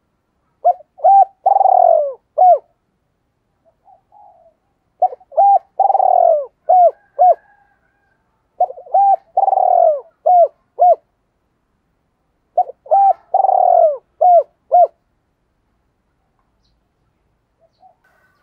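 Spotted dove cooing: four phrases a few seconds apart, each of two short coos, a longer falling coo, then two short closing notes, the 'two-tail' (hai hậu) call pattern.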